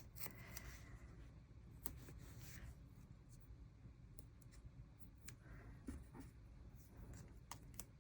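Faint paper rustling and scattered light ticks from small washi flower stickers being peeled off their backing and pressed onto a journal page.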